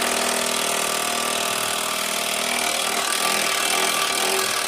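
Power tool running steadily at full speed for several seconds, then cutting off abruptly.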